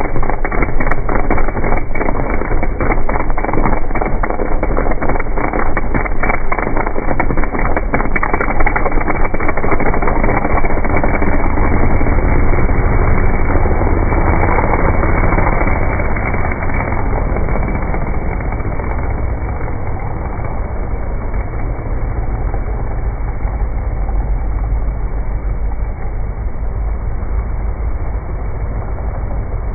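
Dirt drag race truck's engine running loud, with a choppy, crackling exhaust for the first several seconds and harder running around the middle, then easing off somewhat toward the end.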